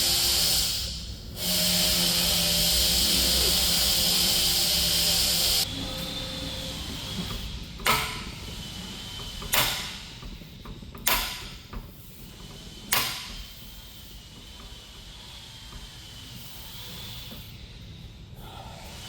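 Shop work noises: a steady loud hiss for about six seconds, then after a sudden drop four separate sharp knocks about one and a half to two seconds apart.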